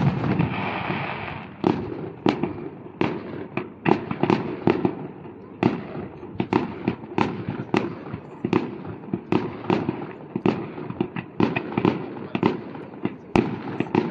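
Fireworks going off: a rapid, irregular series of sharp bangs, about two a second.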